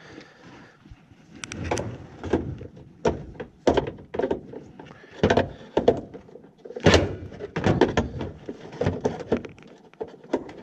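Irregular knocks and clunks of hard plastic and metal parts being handled, a dozen or so, loudest about seven seconds in, as a condensate pump is taken apart.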